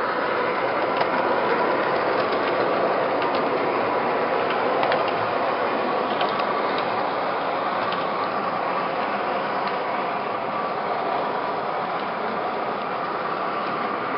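MTH Premier O-gauge R40 subway model running on the layout's track: a steady mechanical whir of motors and gearing with occasional faint clicks of wheels over track joints, easing off slightly toward the end as the train moves away.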